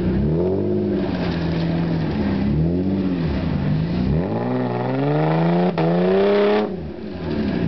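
Engine of a roll-caged off-road 4x4 revving up and down repeatedly as it drives through a deep mud pit. In the second half one long rev climbs steadily, then drops off suddenly.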